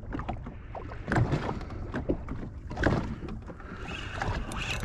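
Choppy sea water slapping against the hull of a Sea-Doo Fish Pro jet ski drifting offshore, in irregular splashes about once a second over a low steady rumble.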